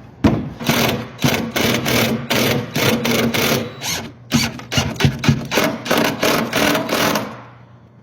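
Power drill driving a screw into the table's form frame, the motor running under load with about four rough, rasping pulses a second, stopping about seven seconds in.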